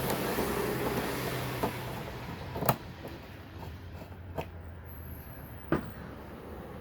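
Plastic rustling and scraping, then four sharp clicks spread over several seconds, the loudest about a third of the way in, as the Honda Odyssey's high-mount brake light housing is worked free of its last attachment.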